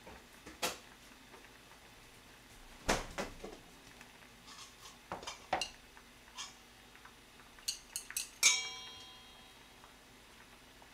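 Scattered knocks and clinks of kitchen utensils and a plastic container on a countertop as gochujang is brought out and scooped, with a dull knock about three seconds in. Near the end a utensil strikes a stainless steel mixing bowl, which rings briefly: the loudest sound.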